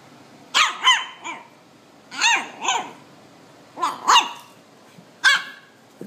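Husky-type puppy barking in short, high, pitched barks, mostly in quick pairs, about eight in all.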